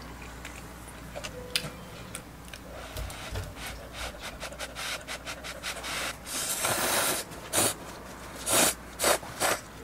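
Rubbing and rustling handling noises: a run of short scrapes that grows busier, a longer rush partway through, and a few louder swishes near the end.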